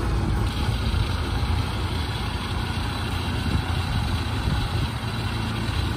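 Engine of a rubber-tracked crawler carrier loaded with rice sacks idling steadily with a low, even hum.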